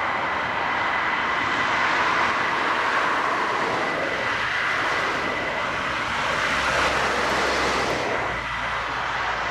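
F-15E Strike Eagle's twin jet engines idling, a steady roar with a high steady whine; the hiss eases slightly about eight seconds in.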